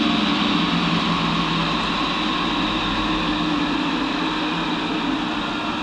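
Monarch 10EE lathe running, a steady machine hum with a constant whine over it.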